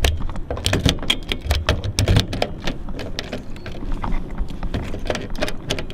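A key worked back and forth in a jammed car door lock, with irregular clicks and rattles of the key and keyring over a low rumble. The key is crushing pencil graphite into the lock cylinder to free the stuck lock, which stays jammed.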